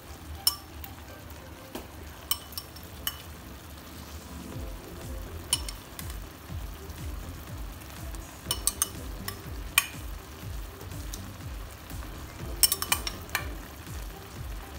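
Coconut milk and taro leaves simmering in a nonstick frying pan, a steady low bubbling that grows stronger partway through. Over it come sharp clinks of a metal ladle against the pan as whole raw shrimp are laid in, some single and some in quick clusters.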